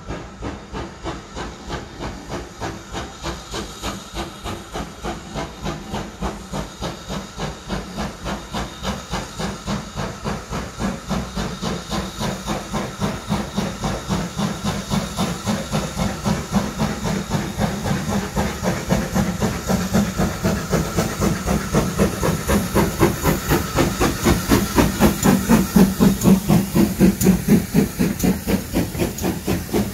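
GWR Manor class 4-6-0 steam locomotive 7820 Dinmore Manor working a train under steam. Its exhaust beats chuff evenly at about three a second, growing steadily louder as it approaches and loudest as it passes close by near the end.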